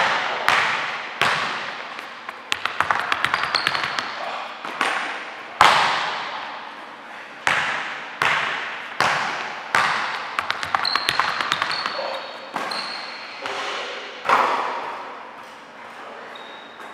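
A basketball thudding again and again on a hardwood gym floor and into hands, each hit ringing out in the big hall's echo, with a run of quick small bounces about three seconds in. Short high sneaker squeaks come in between.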